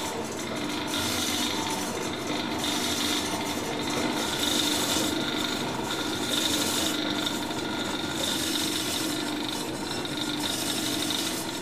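Berkel electric meat slicer running, its round blade spinning as it cuts air-dried beef (Bündnerfleisch) into thin slices: a steady motor hum with a rasping sound that swells and fades over and over as the meat passes the blade.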